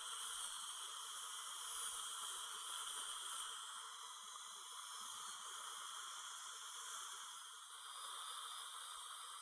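High-speed dental handpiece with a diamond bur running against the teeth, giving a faint, slightly wavering high whine over a steady hiss. It is smoothing the edges of freshly bonded porcelain veneers into the enamel.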